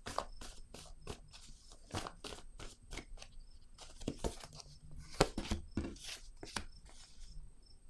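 A deck of oracle cards being shuffled and handled by hand over a wooden table: a quick, irregular stream of papery flicks and taps, the sharpest about five seconds in.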